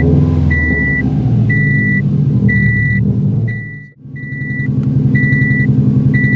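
Subaru WRX STI's turbocharged flat-four engine running, heavier in the first second, with a steady high beep repeating about once a second over it. The sound drops out briefly about four seconds in.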